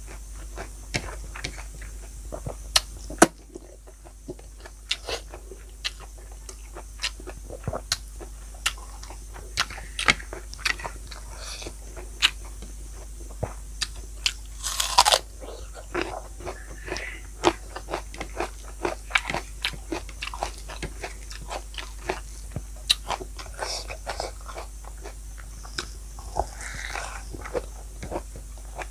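A person eating close to the microphone: irregular crunchy bites and chewing, with a louder crunch about fifteen seconds in.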